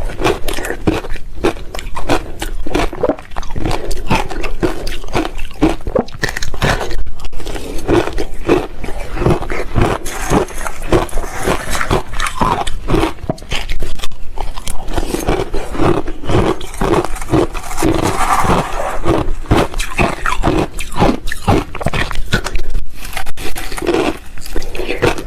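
Ice being bitten and chewed close to the microphone: a continuous run of irregular, loud crunches and cracks.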